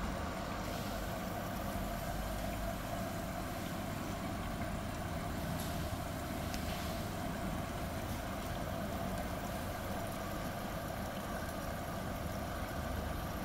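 Whirlpool front-load washing machine filling, water running steadily into the drum through the open inlet valve at the start of a wash cycle.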